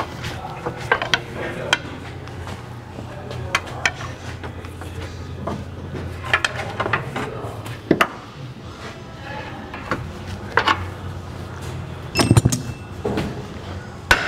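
Irregular metal clinks and knocks as a car's lower control arm is worked loose from its mounting points, where it is stuck tight in its rubber bushings, which is normal. A run of harder knocks comes near the end, over a low steady hum.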